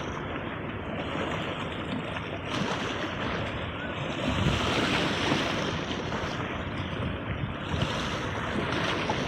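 Sea waves breaking and washing in, a continuous rushing surf that swells louder about halfway through, with wind rumbling on the microphone.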